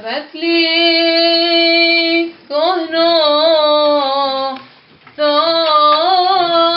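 A woman singing solo and unaccompanied: one long held note, then two ornamented phrases whose pitch wavers up and down, with short breaths between the phrases.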